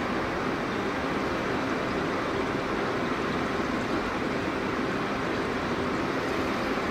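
Steady, even rushing noise with no distinct events: the ambient sound of the exhibition hall.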